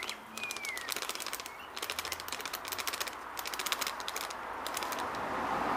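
Rapid crinkling clicks from a plastic packet of grated cheese being handled and shaken out. A short falling bird chirp comes near the start, and a hiss grows louder near the end.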